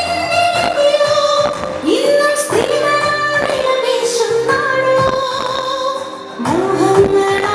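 Recorded music with a woman singing, held notes gliding between pitches over a steady beat.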